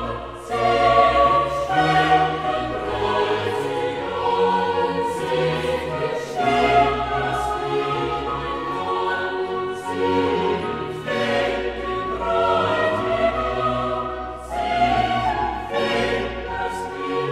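Classical choral music: a choir singing long held chords with orchestral accompaniment.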